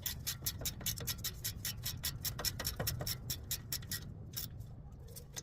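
Hand ratchet with a 15mm socket clicking rapidly, about seven clicks a second, as brake caliper bolts are run in. The clicking pauses briefly about four seconds in.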